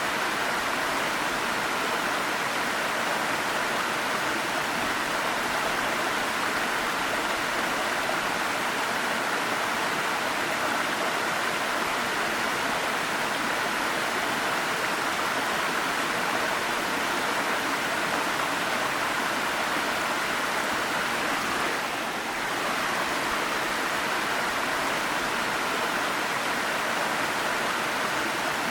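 Waterfall: water falling and splashing in a steady, unbroken rush, with a brief dip in loudness about three quarters of the way through.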